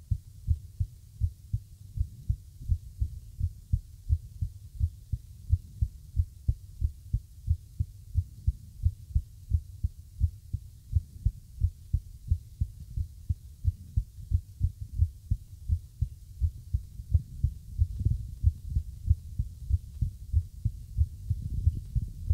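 Human heartbeat recorded close up: low thumps repeating two to three times a second, with uneven spacing that the uploader calls irregular.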